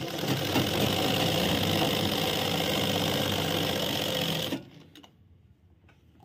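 Sewing machine running steadily as it stitches a seam through trouser fabric, then stopping abruptly about four and a half seconds in.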